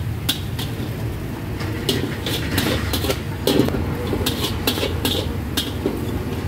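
Busy street-food stall ambience: a steady low rumble of traffic, with irregular sharp metallic clinks of cooking utensils, about two a second.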